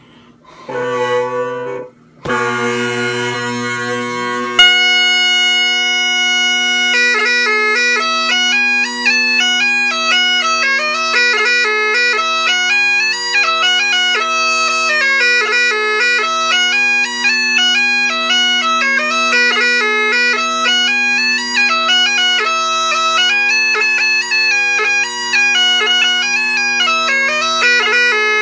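Highland bagpipes being struck in: the drones start with a wavering sound about a second in, break off, then settle into a steady drone, and the chanter comes in on a long held note at about four and a half seconds. From about seven seconds a lively tune runs over the constant drones.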